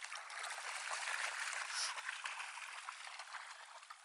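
Water splashing and running in a shallow river, swelling about a second in and then dying down.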